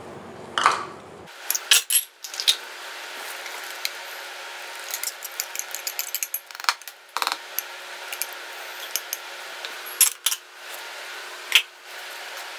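Scattered clinks and taps of a glass bowl and a spatula knocking against a mixing bowl as wet cake batter is poured and scraped into the flour.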